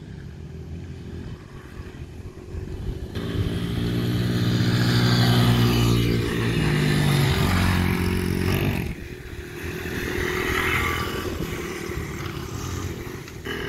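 Small Honda XR dirt bike's single-cylinder four-stroke engine running, faint at first, then much louder from about three seconds in, with a brief rise in revs midway. It drops back at about nine seconds and swells once more before fading.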